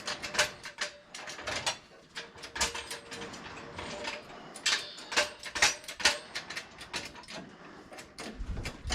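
Irregular mechanical clicking and clatter, a few sharp clicks a second, from tools or metal parts being worked.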